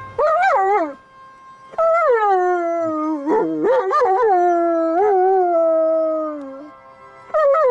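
German Shepherd dog howling: a short howl, then one long wavering howl that slowly falls in pitch, and another howl starting near the end.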